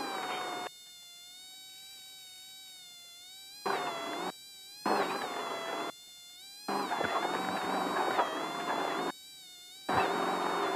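A steady high-pitched electrical whine with many overtones, wavering slightly in pitch, runs through the race car's intercom audio. Engine and rattle noise from the off-road race car cuts in and out abruptly over it several times as the intercom's voice gate opens and closes.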